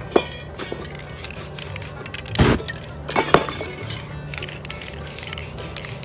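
Background music, with an aerosol spray-paint can hissing in short spurts near the end and a few sharp knocks in the first half.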